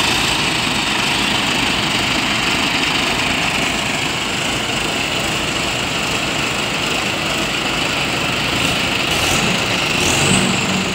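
Diesel engines of several Mahindra farm tractors running steadily as they drive off in a line.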